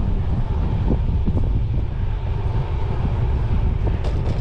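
Wind buffeting the microphone of a camera on a moving road bike: a steady low rumble, with a few faint clicks a little before the end.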